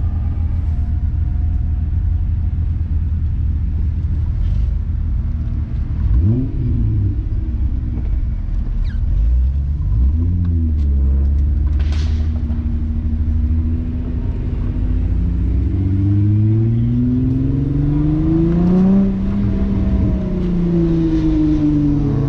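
VR6 engine of a Mk3 Volkswagen Golf heard from inside the cabin at low speed, with a steady low rumble. It gives two short blips of revs, then climbs steadily in pitch under light throttle and eases back off near the end. A single sharp click sounds about midway.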